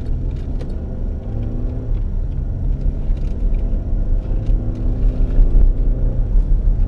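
Steady low rumble of a car being driven, engine and road noise heard from inside the cabin, getting a little louder in the second half.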